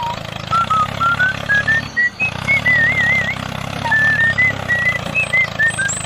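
Steady low engine-like running of a toy tractor, briefly dipping about two seconds in, with a string of short high chirping notes over it.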